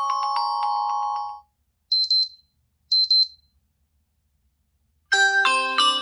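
Xiaomi Poco F3 ringtones: a multi-note melody that stops about a second and a half in, two short high beeping chirps around two and three seconds in, then a new ringtone melody starting near the end.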